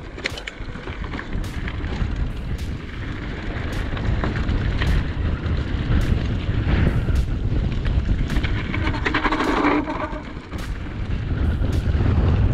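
Wind buffeting an action camera's microphone, with scattered knocks and rattles from a mountain bike being ridden.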